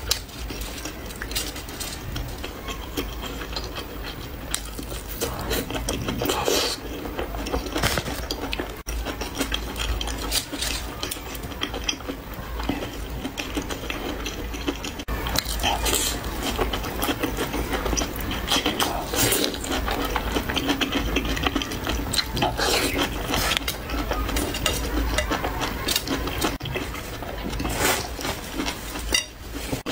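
Close-miked eating: wet chewing, smacking and slurping of oily skewered food, with a dense run of small clicks and crackles throughout.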